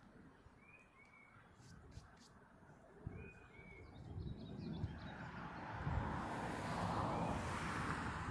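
Two pairs of short bird chirps in the first few seconds. Then, about four seconds in, a broad rushing noise swells up and holds loud, drowning out the quiet outdoor background.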